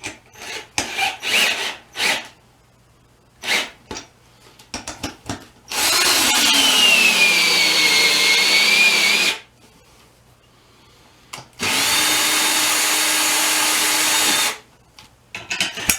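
Cordless drill driving a bead-breaker tool against a tire bead. A few knocks come first as the tool is set. Then the drill makes two runs of a few seconds each: the first sags in pitch under load, and the second holds steady until the bead comes loose.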